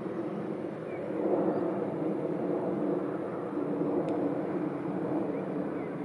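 A steady low engine drone from distant motor traffic, growing a little louder about a second in. A few faint short high chirps and a single light tick sit over it.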